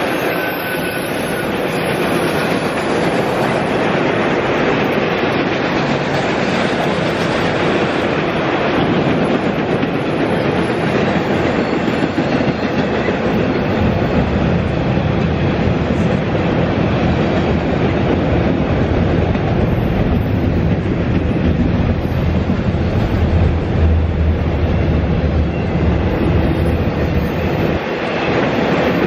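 Autorack freight cars rolling past on steel wheels, a steady noise of wheels running over the rails.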